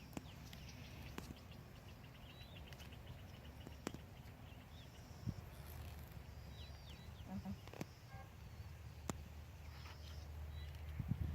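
Faint, scattered chirps of small birds, with a few sharp clicks and a low steady rumble underneath.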